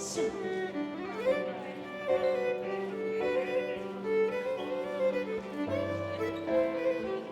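Live contra dance band playing a dance tune: a melody of held notes over a steady low drone, with a deeper bass note coming in about six seconds in.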